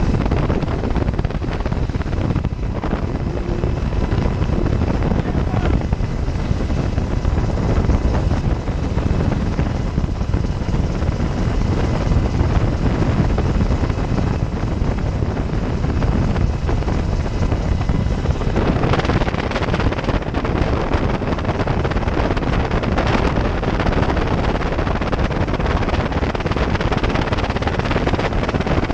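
UH-60 Black Hawk helicopter in flight, heard from its open cabin door: a steady rush of rotor and twin turboshaft engine noise mixed with wind buffeting the microphone. About two-thirds of the way through, the wind hiss grows harsher.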